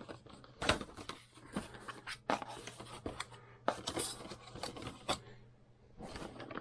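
A Ryzen 3 CPU retail box being opened and unpacked by hand: irregular sharp clicks, taps and short scrapes of the cardboard and plastic packaging.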